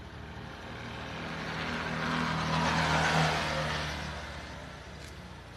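A passing road vehicle: engine and tyre noise swell to a peak about three seconds in, then fade away.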